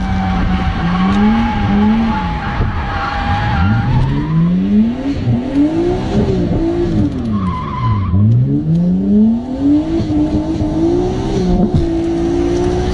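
Nissan Cefiro's RB25 straight-six heard from inside the cabin, revving up and falling back again and again as the car is drifted, with tyres squealing over the first few seconds and briefly again about halfway through.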